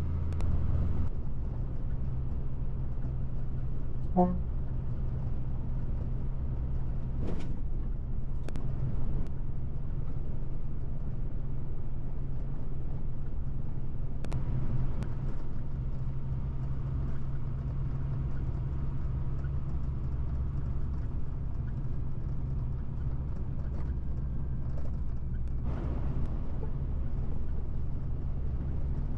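Truck engine running at a steady cruise with road and tyre noise, heard from inside the cab, a steady low drone with a few short clicks scattered through it.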